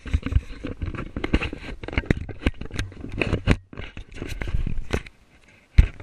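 Handheld action camera being moved about close to the body: irregular rustling, scraping and knocking of handling noise on the microphone, with a short lull partway through and a sharp knock near the end.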